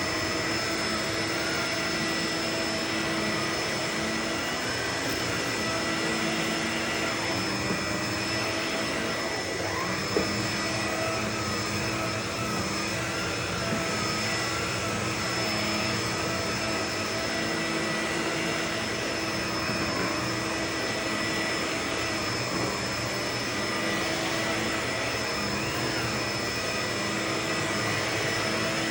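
Vacuum cleaner running steadily, its motor giving a constant rushing noise with a high whine. There are a few small sharp clicks about eight and ten seconds in, typical of crunchy debris being sucked up.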